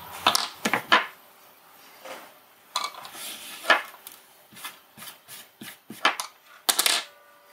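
Scattered light clicks and taps of small hard items being handled on a tabletop: a circuit board and small hand tools set down and moved about.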